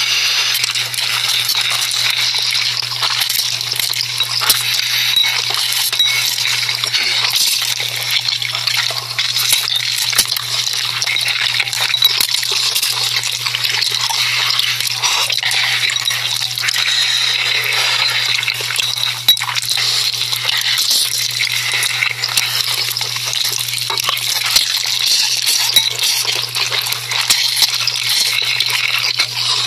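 ASMR eating sounds of noodles being slurped and chewed: dense wet, clicky, crackly mouth sounds with no pauses, over a steady low hum.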